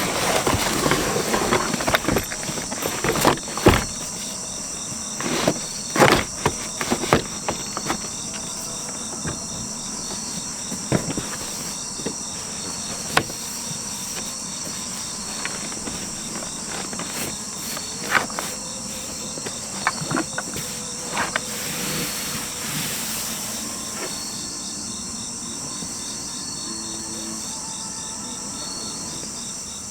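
Crickets and other night insects chirping steadily throughout. Over them come scattered knocks, clicks and rustling during the first twenty-odd seconds as a sleeping floor is laid out and leveled in the car, then only the insects.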